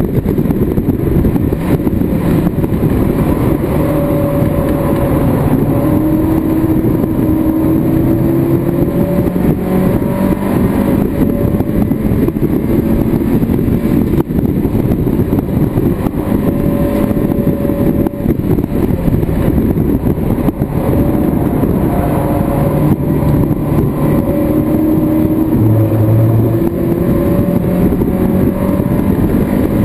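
Mazda MX-5 race car's four-cylinder engine heard from inside the cockpit under hard acceleration. Its note climbs with the revs several times and falls back at each gear change, over a steady rush of wind and road noise.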